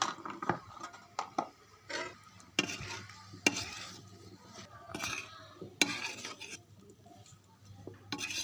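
A spoon stirring and scraping food in a cooking pan, with irregular sharp scrapes and clicks of the spoon against the pan.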